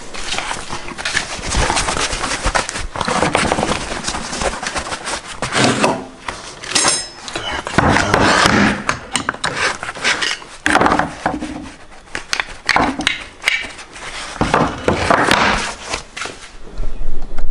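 Aluminium casting molds and hand tools being handled on a workbench: a busy run of small metal clinks, knocks and scrapes.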